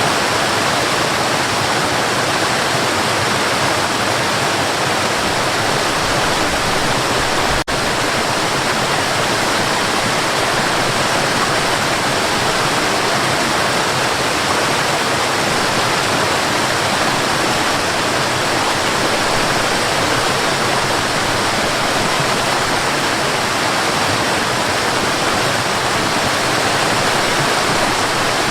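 Mountain river running, a steady rushing of water with no let-up, broken only by a brief dip in level about eight seconds in.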